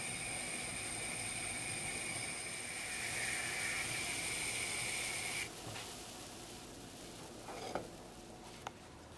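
Water heating in a stone-coated frying pan on a glass hob: a steady hiss with a high whine that cuts off abruptly about halfway through. Near the end comes a short scrape and a sharp click as the pan is lifted off the hob.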